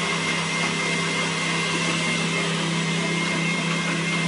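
Countertop blender motor running steadily through its blending cycle, churning a green smoothie of celery, parsley, grapes and apple juice. It makes a constant hum at one unchanging pitch under an even whirring rush.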